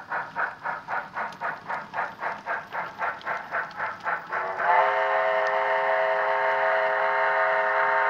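Steam locomotive sound for the Sn3 model of Rio Grande engine No. 496: rhythmic exhaust chuffs at about four to five a second, then, about four and a half seconds in, a steam whistle starts and is held steady as a chord of several tones.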